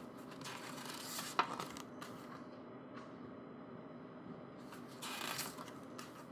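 Paper rustling as the pages of a CD's mini photo book are turned by hand, twice, with a sharp click about a second and a half in.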